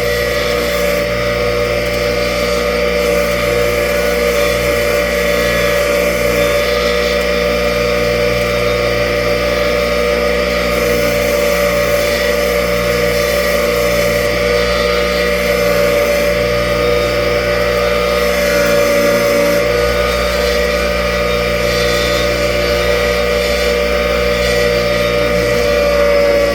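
Bench grinder motor running steadily while a steel part is held to its worn wire wheel. A high scratchy hiss from the wire brushing the metal comes and goes as the part is pressed on and eased off.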